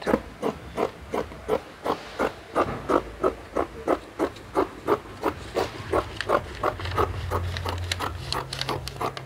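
Long-bladed dressmaking scissors snipping through pattern paper in steady strokes, about three cuts a second. A low steady hum comes in about six seconds in.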